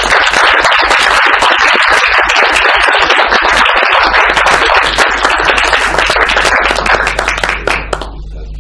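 Audience applauding: a dense spread of hand claps that dies away about eight seconds in, leaving a low steady hum.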